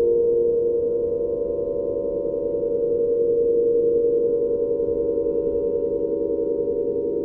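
Wind-driven strings of a large aeolian harp (wind harp) sounding a steady cluster of drone-like overtones in the middle register, with a fast wavering beat between the tones. The sound swells and eases gently, strongest at the start and again about halfway through.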